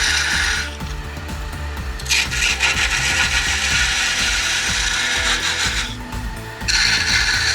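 Wood lathe running while a tool is held against the spinning wood, giving a scraping hiss in three passes: one that stops under a second in, a long one from about two seconds to six, and another starting near the end, over the lathe's low hum.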